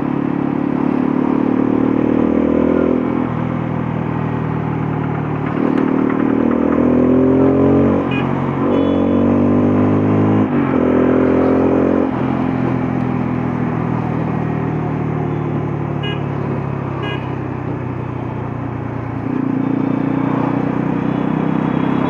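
Bajaj Pulsar F250's single-cylinder engine heard from the rider's seat, accelerating through the gears. It rises in pitch in four runs over the first half, each broken off sharply at a gear change, then holds a steady cruise before rising again near the end.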